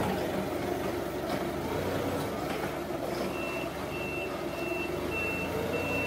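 Forklift running, with its reversing alarm starting about halfway in: a high beep repeating a little under twice a second over the machine's steady running noise.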